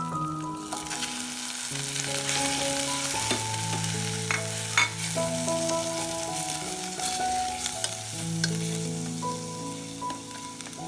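Food sizzling in a hot pan while being stirred, with scattered clicks of a utensil against the pan, under background music of held melody and bass notes.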